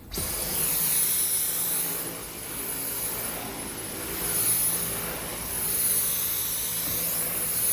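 Dyson V10 cordless stick vacuum starting suddenly and running, a steady motor whine with a thin high tone, its loudness swelling and dipping as the head is pushed back and forth over the carpet.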